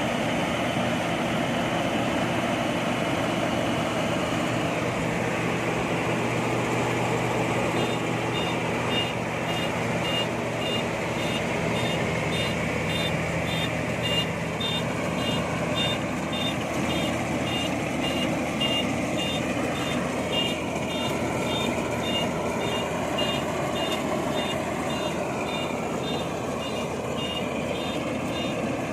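INARI combine harvester's engine running steadily, with a reversing alarm beeping about one and a half times a second starting about eight seconds in: the machine is backing up.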